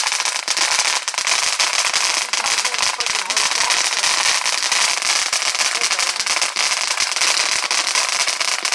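Ground fountain firework spraying sparks: a steady hiss thick with rapid crackling pops.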